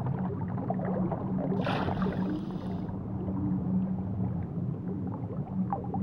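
Underwater ambience: a steady low hum, with a brief hiss from about a second and a half in until nearly three seconds.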